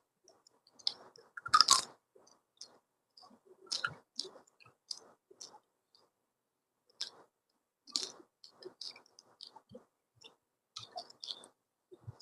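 Close-up mouth sounds of a person chewing a meal of rice and fish: irregular short smacks and bites, the loudest about one and a half seconds in, with a short pause around six seconds.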